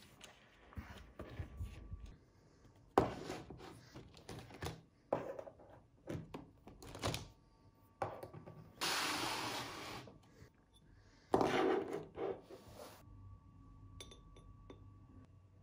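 Art supplies handled on a wooden desk: a scatter of small knocks and thunks as paint tubes and tools are picked up and set down, with two longer scraping rustles, about nine and twelve seconds in, as tubes are rummaged in a plastic crate.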